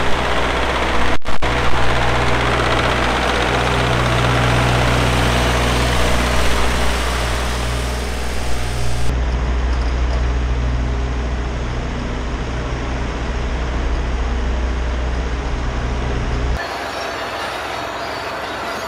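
Takeuchi TB230 mini excavator's diesel engine running at full throttle as it tracks across a concrete floor on standard rubber tracks, with a steady low engine tone under a broad rattling noise. About halfway through the sound turns heavier and more booming, then near the end the engine sound stops and a different steady noise takes over.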